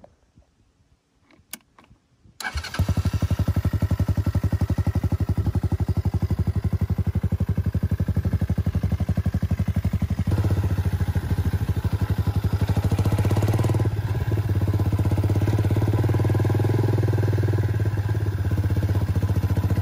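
200cc single-cylinder four-stroke engine of a Power Wheels go-kart starting up suddenly about two seconds in and running steadily, its note growing louder and deeper about halfway through.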